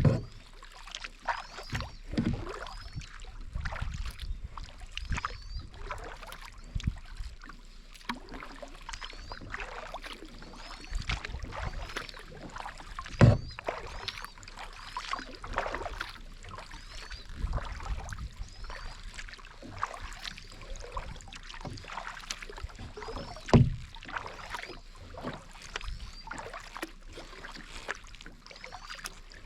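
Kayak paddling: the paddle blades dipping and swishing through the water in a steady stroke rhythm, about once a second. Three sharp knocks, at the start, about halfway and about two-thirds of the way through, are the paddle striking the kayak.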